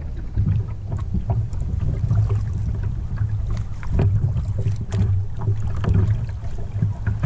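Wind buffeting the kayak's bow-mounted camera microphone as a steady low rumble, with water lapping against the hull and scattered small knocks and clicks from the boat.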